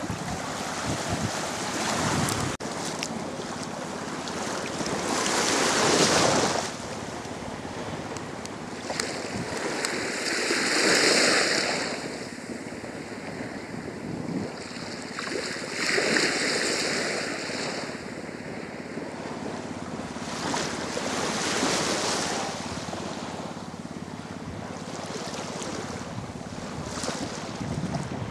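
Wind and sea: gusts blowing across the microphone over small waves washing around the jetty, a steady rushing that swells louder every four to five seconds.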